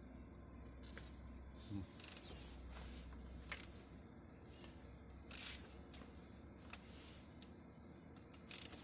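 Audi A8 4.2-litre V8 engine (AQH) idling as a faint, steady low hum, filmed because of a knock in the engine, with a few sharp clicks at irregular moments.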